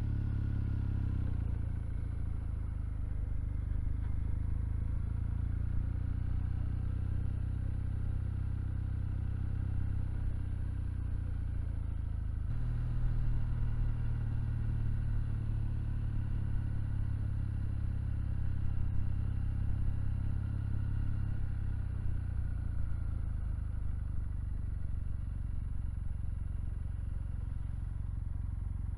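Kawasaki W800 motorcycle's air-cooled parallel-twin engine running as the bike is ridden. Its note drops about a second and a half in, picks up sharply about halfway through, and eases off again near the end.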